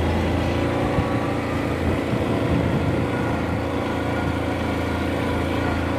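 ATV engine running steadily, with a brief knock about a second in.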